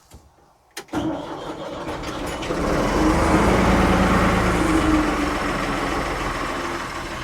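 1975 Ford 550 backhoe's diesel engine coming in suddenly about a second in and revving up under added throttle, holding at a higher speed, then easing off a little near the end.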